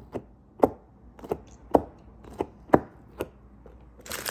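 About seven sharp taps, roughly two a second, like a small hard object knocking repeatedly on a hard surface.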